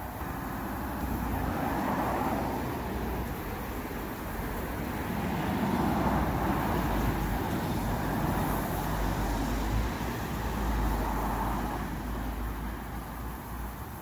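Road traffic: about three cars pass one after another, each swelling and fading, over a steady low rumble.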